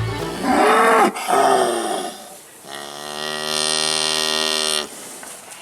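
Dairy cow mooing: two short calls that rise and fall in pitch, then one long, steady, low moo of about two seconds.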